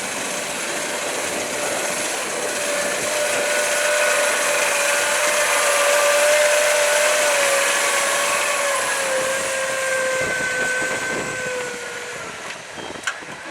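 Case IH Puma 200 CVX tractor's diesel engine running under load while pulling a deep plough, with a steady whine over the engine. It grows louder to about the middle, then fades as it moves away, the whine dropping slightly in pitch. A few sharp clicks near the end.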